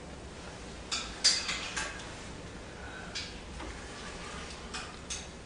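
A handful of short sharp clicks and taps, a quick cluster about a second in and a few more near the end, over a low steady background hum.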